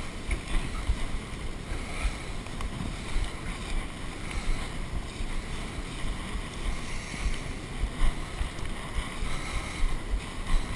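Wind buffeting the microphone outdoors: a steady rough rumble with irregular gusts.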